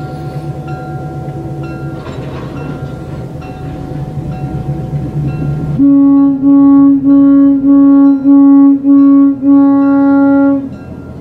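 Switcher locomotive running as a cut of tank cars rolls past, with a steady hum and a light regular clicking. About six seconds in, a locomotive horn sounds loudly in a string of about eight short, evenly spaced blasts on one pitch, lasting some five seconds.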